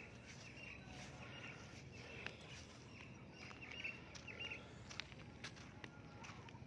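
Faint bird chirping: short high calls repeating about twice a second, stopping after four or five seconds, with a few scattered light footsteps.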